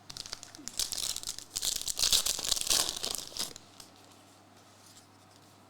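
Foil wrapper of a trading card pack being torn open and crinkled, a dense crackling rustle that stops about three and a half seconds in.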